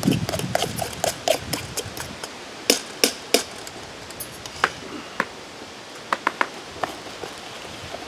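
A metal spoon clinking and scraping against a stainless steel bowl while stirring thick dumpling batter: quick small clicks at first, then a few louder separate metal knocks and a short rapid cluster of taps.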